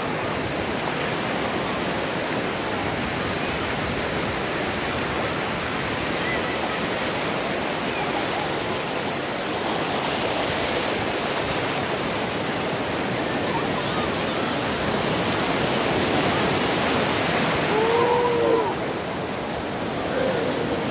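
Ocean surf breaking and washing through the shallows: a steady rush of water noise, a little louder near the end, with faint voices of bathers calling out.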